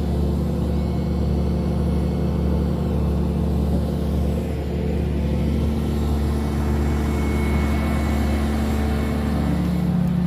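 Excavator engine running at a steady speed, a constant low hum.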